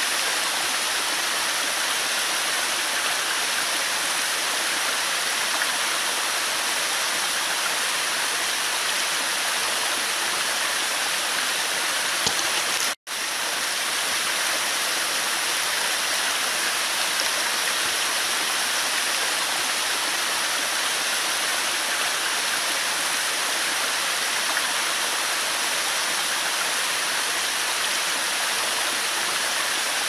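A 36-metre slide waterfall, thin streams of water sheeting down steep rock, making a steady hiss of falling water. The sound drops out for an instant about thirteen seconds in.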